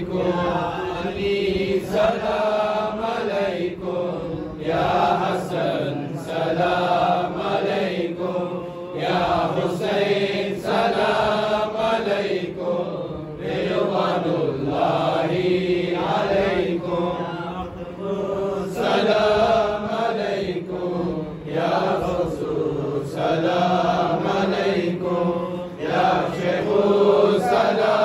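Men's voices chanting the Salam, a devotional salutation to the Prophet, recited together in a slow, unbroken melody.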